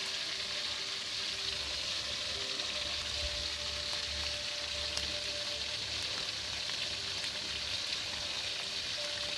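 Carp frying in hot oil: a steady, even sizzle.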